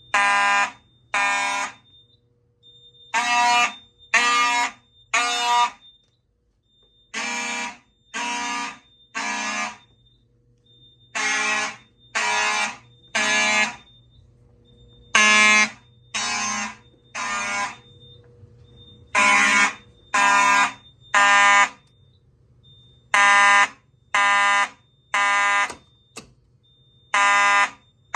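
Vintage fire alarm horn sounding a buzzy tone in the temporal-three evacuation pattern: three half-second blasts a second apart, then a pause of about two seconds, repeating throughout.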